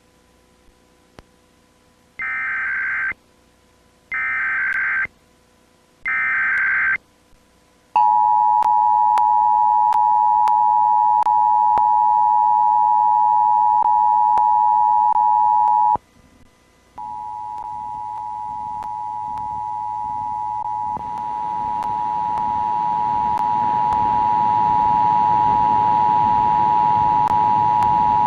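Emergency Alert System test signal: three short bursts of the digital header data tones, each about a second long and a second apart, then the steady two-tone attention signal sounding for about eight seconds. The attention tone breaks off for about a second and comes back quieter, growing louder with a rising hiss beneath it.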